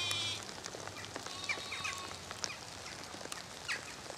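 Zwartbles lambs bleating: one clear bleat right at the start, then a few fainter, shorter bleats about a second and a half in, over a light patter of rain.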